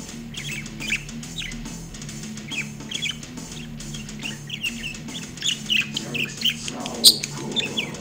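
Budgerigar chirping in many short, quick calls over music playing from the speaker it sits on. A sharp click about seven seconds in, and the music grows louder near the end.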